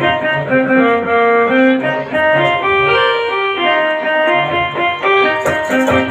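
Music: a melody played on an organ-toned keyboard instrument, one held note after another. A light rhythmic ticking joins near the end.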